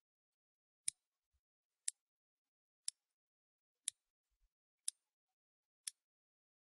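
Countdown-timer tick sound effect: a sharp, high-pitched clock tick once every second, six times, with silence between.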